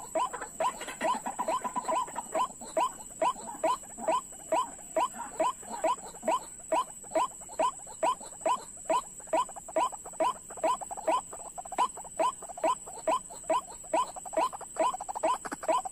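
White-breasted waterhen calling: a long, even series of short harsh notes, about three a second, with a steady high-pitched whine underneath.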